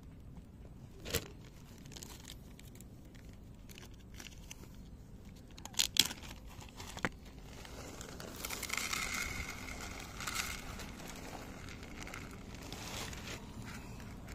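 Plastic zip bag of dry cat food crinkling as the kibble is shaken out into a dish, mostly in the second half. A few sharp clicks come before the pour.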